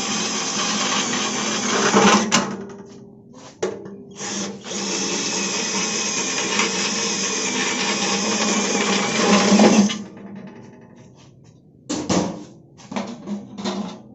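A power tool running steadily, cutting off about two seconds in, then running again for about five seconds before stopping suddenly. A few short sharp sounds follow near the end.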